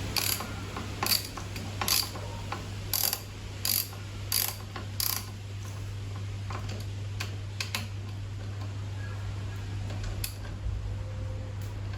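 Sharp mechanical clicks from hand-tool work on a motorcycle, about one every 0.7 s for the first five seconds, then fainter and more scattered, over a steady low hum.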